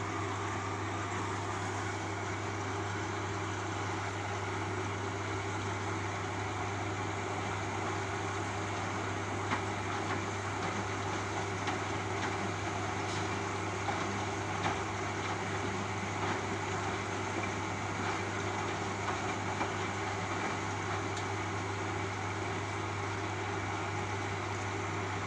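Beko Eco Care WMA 1510 W washing machine running on its 60 °C eco wash: a steady motor hum with the noise of the turning drum and water, and a few light knocks about halfway through.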